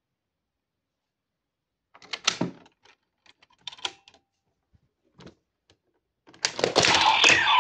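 A few sharp plastic clicks and knocks as a Vistamp is handled on a DX Revice Driver toy belt. About six seconds in, the belt's speaker starts a loud electronic sound effect that keeps going.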